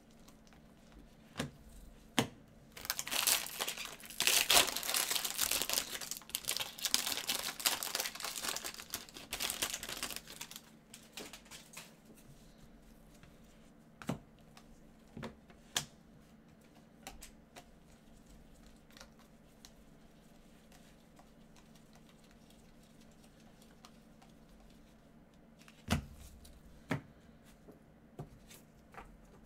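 Gloved hands handling a stack of baseball cards and their packaging: a stretch of crinkling and rustling for about seven seconds, starting about three seconds in, then a few scattered soft taps and clicks of cards being handled.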